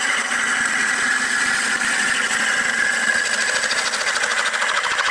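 Metal-working lathe turning a wooden cylinder, the cutting tool shaving it down in a steady continuous cut.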